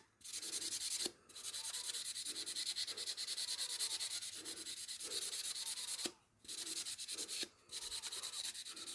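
Fast back-and-forth scrubbing on a garden-tool blade to clean off rust and grime, with brief pauses about one, six and seven and a half seconds in.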